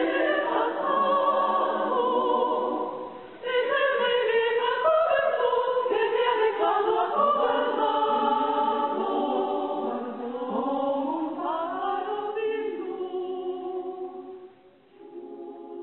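Women's choir singing in many voices, with vibrato. It breaks briefly about three and a half seconds in, then softens near the end into a quieter held chord that fades away.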